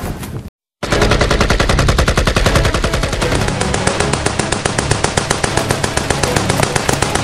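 Machine-gun sound effect: one long, unbroken burst of rapid, evenly spaced automatic gunfire, starting sharply after a short break of silence just under a second in.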